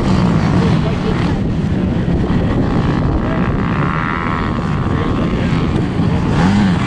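Several dirt-bike engines running at once, revving unevenly as riders struggle to get their bikes over a log obstacle, the pitch rising and falling.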